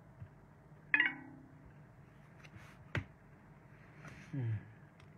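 A few sharp clicks in a quiet small room, the first with a short ringing clink about a second in, and a brief low falling hum of a man's voice near the end.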